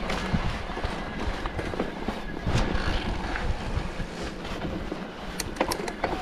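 Mountain bike descending a rough trail: a steady rumble of tyres over dirt with repeated rattling clicks and knocks from the bike.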